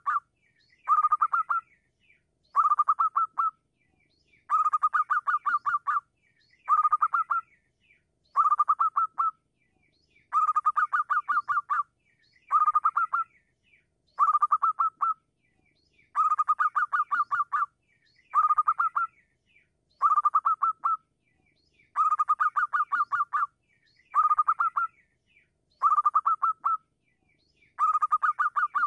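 Zebra dove (perkutut) song: short phrases of rapid staccato cooing notes, repeated about every two seconds as a steady series of calls, used as a lure call for other zebra doves.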